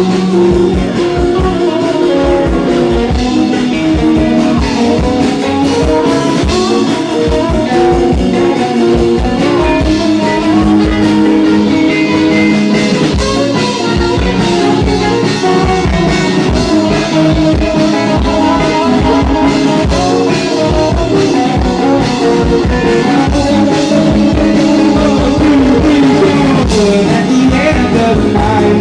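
Live band playing a rock song: guitar over a drum kit keeping a steady beat.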